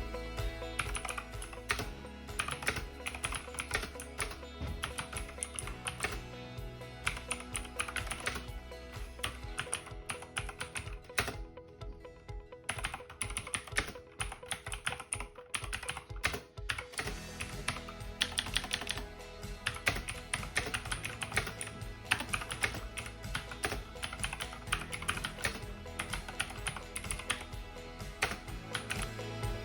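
Typing on a Razer BlackWidow V3 mechanical gaming keyboard with clicky switches: quick, irregular key clicks over background music. The music drops out for a few seconds in the middle while the typing continues.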